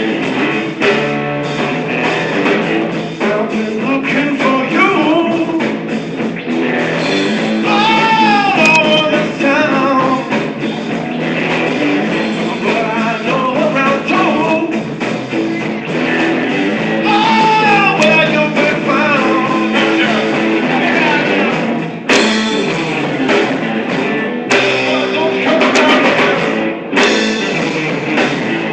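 A song with guitar and a singing voice.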